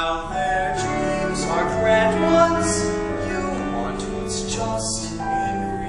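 A man singing a musical-theatre ballad over instrumental accompaniment, with long held notes and sharp 's' sounds on some words.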